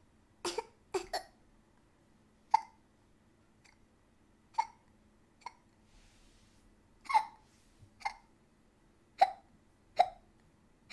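A woman hiccuping repeatedly: about ten short, sharp hiccups at an uneven pace, a second or two apart, two of them in quick pairs near the start.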